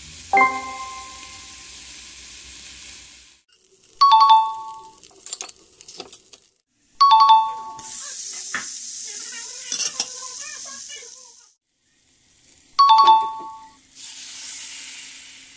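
Chicken livers sizzling in hot oil in a pan, the sizzle stopping and starting several times, with scrapes of a wooden spatula stirring. A short two-note chime sound effect rings four times: about half a second in, at about four and seven seconds, and near the end.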